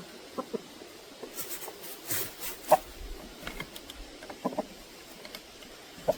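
Free-range chickens clucking softly in short, scattered calls, with a brief scratchy noise about two seconds in.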